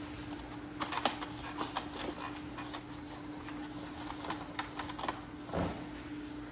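Epson L1800 inkjet printer running a test print after a print-head cleaning: irregular mechanical clicks and ticks from the paper feed and print carriage over a steady hum, with a louder clunk near the end.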